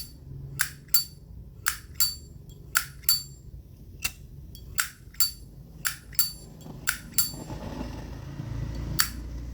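A 1965 Zippo lighter's hinged lid being flicked open and snapped shut again and again: sharp metallic clicks with a short high ring, coming in quick pairs, then a single click near the end.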